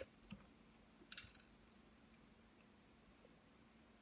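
Faint clicks of small parts being handled at a workbench: a sharp click at the start, a smaller tick just after, and a short light rattle about a second in, then near silence.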